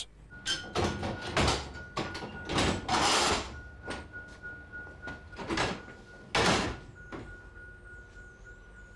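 Signal box equipment being worked: a string of clunks, knocks and longer sliding scrapes, the biggest about a second and a half in, around three seconds in and near six and a half seconds. A faint steady high-pitched tone runs underneath.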